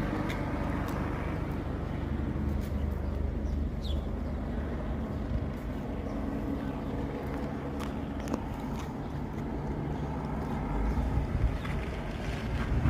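Police helicopter flying low overhead: a steady low drone of rotor and engine, getting louder and rougher near the end.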